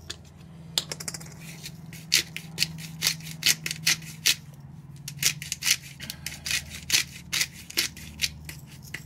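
Hand-twisted pepper grinder cracking peppercorns: a run of irregular, gritty clicks as the grinder is turned back and forth, over a steady low hum.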